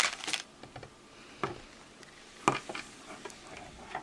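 Plastic packaging crinkling briefly at the start, then two light clicking taps about a second apart as a small plastic toy figure is handled and set down on a hard surface.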